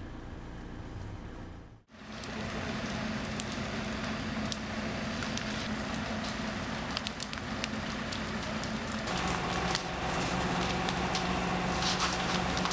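A large fire burning and crackling, with many sharp pops, over a steady low engine hum that grows louder about nine seconds in. The burning thing is a caravan.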